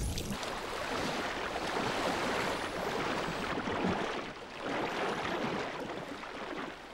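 Rushing, splashing sea water stirred by a pod of dolphins swimming and breaking the surface. It comes in two swells with a short lull about four seconds in.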